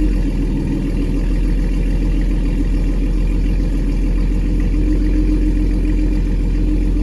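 Ford Mustang 3.7-litre V6 idling steadily while still cold, shortly after start-up with a new low-temperature (160°F) thermostat fitted.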